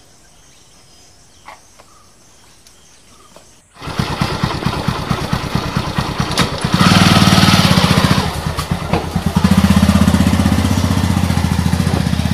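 Honda motorcycle engine starting suddenly about four seconds in, then running with a rapid even beat. It gets louder twice as the throttle is opened and the bike rides off.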